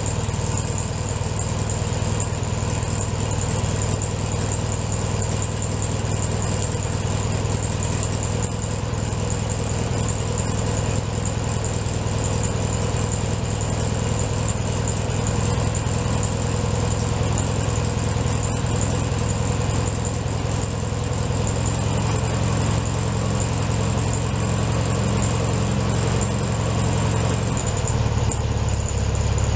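1967 Volkswagen Beetle's air-cooled flat-four engine idling steadily.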